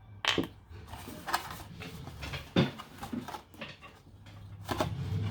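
Irregular light taps, clicks and scrapes of paint pens being used on plastic milk bottles.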